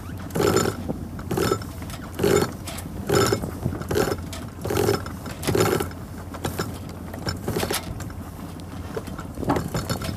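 Sailboat sheet winch ratcheting in short bursts as a line is hauled in hand over hand around its drum, about one pull a second, weaker in the last few seconds. A steady low rumble runs underneath.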